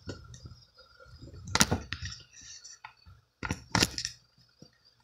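Handling noise from a hand-held phone rubbing and bumping, with scattered sharp clicks and knocks of small hard objects being handled and set down; the two loudest knocks come about one and a half and nearly four seconds in.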